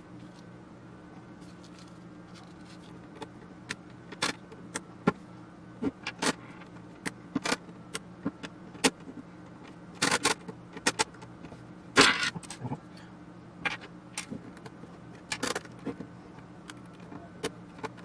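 Bristol spline wrenches working small spline-head screws out of an avionics control box: scattered light metal clicks and clinks of the tool against metal parts, with a louder clatter about twelve seconds in, over a steady low hum.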